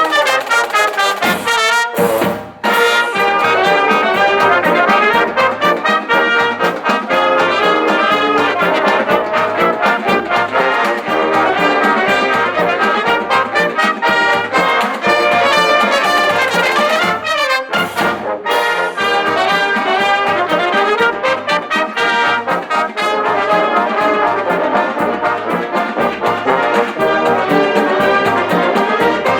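Marching band playing a march: trumpets and trombones over a steady drum beat, with short breaks about two seconds in and about eighteen seconds in.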